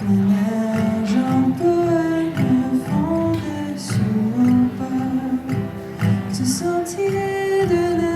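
Live acoustic music: a melody of held notes over a fuller accompaniment, with no words sung.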